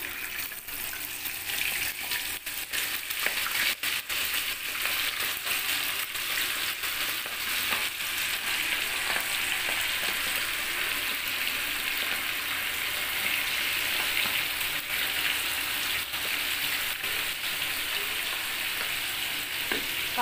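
Masala-marinated quail pieces sizzling as they deep-fry in hot oil in a kadai. The sizzle builds up over the first couple of seconds as the pieces go in, then holds steady, with a few brief clicks.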